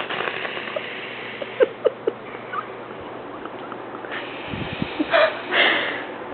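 Snoring: a loud, rough snore about four and a half seconds in, with a few short snuffles before it.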